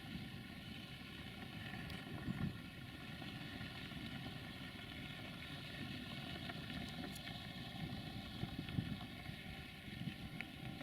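Steady hum of an idling rail vehicle, a set of even tones held throughout, with wind buffeting the microphone in low gusts.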